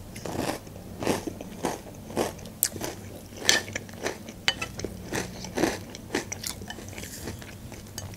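Crunching and chewing of Nesquik Duo chocolate cereal balls in milk, in short, irregular crunches.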